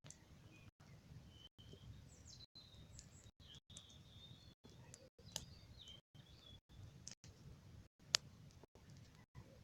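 Large bonfire crackling faintly, with scattered ticks and a few sharp pops, the loudest about 8 seconds in. A thin, wavering high whistle comes and goes in the first half.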